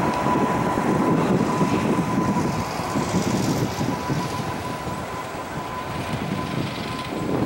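Boeing 737-800's CFM56 turbofan engines running on the runway: a steady rumble with a thin high whine through it, easing slightly past the middle.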